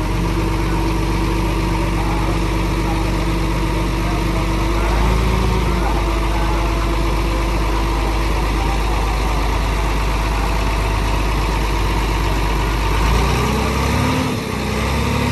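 Dump truck engine idling steadily, then speeding up about thirteen seconds in as the hydraulic hoist begins raising the loaded bed.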